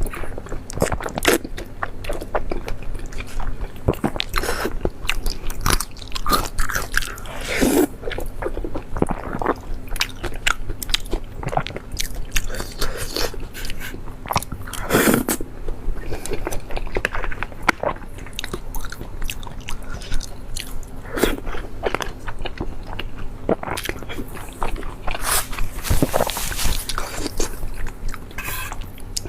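Close-miked eating: a person biting and chewing food, with frequent sharp, irregular crunching clicks.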